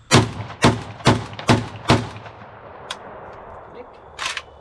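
Izhmash Saiga-12 gas-operated semi-automatic 12-gauge shotgun firing five rapid shots of 00 buckshot, about two a second. The action cycles every round without a stoppage. A faint click follows about a second later, and a short sharp noise comes near the end.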